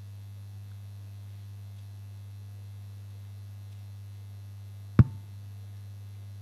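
Steady low electrical mains hum, with a single sharp click about five seconds in.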